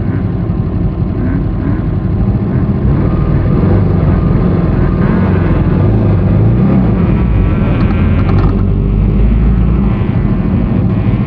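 Off-road race vehicle's engine running loud under load, heard from on board, its pitch shifting up and down with throttle.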